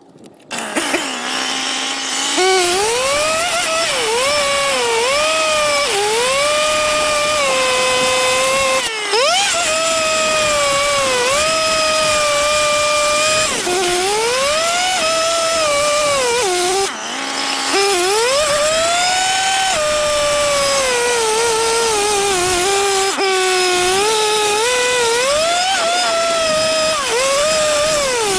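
Small engine-driven power equipment running hard, its pitch rising and sagging again and again as it takes and sheds load, with short breaks about 9 and 17 seconds in.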